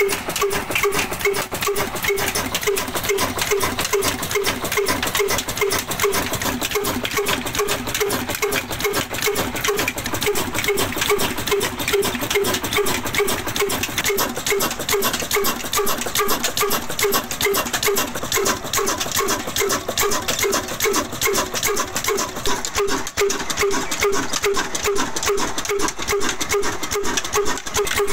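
Ruston Hornsby single-cylinder horizontal diesel engine running steadily. It beats evenly about three times a second over a dense metallic clatter.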